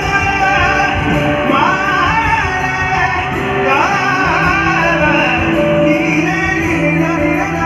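Live amplified music: a male singer singing a melodic line into a microphone over backing instruments, all heard loud through the stage PA speakers.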